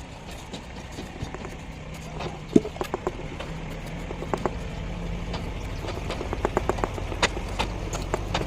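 Irregular sharp taps and knocks, some in quick runs, with one louder knock about two and a half seconds in, over a steady low hum.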